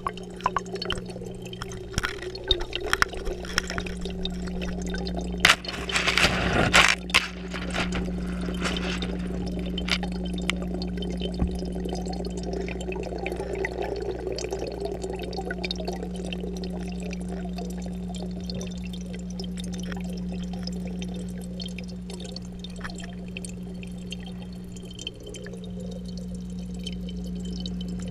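Inside a home aquarium, heard underwater through a GoPro's waterproof housing: a steady low hum from the tank's pump, with a stream of air bubbles bubbling and clicking. About six seconds in there is a cluster of louder knocks and splashes.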